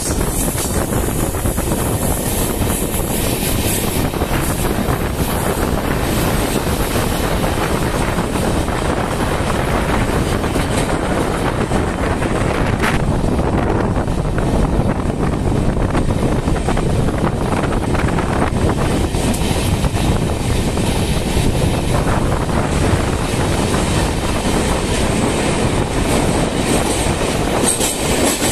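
Passenger train running steadily as it climbs a steep ghat gradient, heard from an open coach doorway: a loud, continuous rumble of wheels on rails mixed with wind on the microphone.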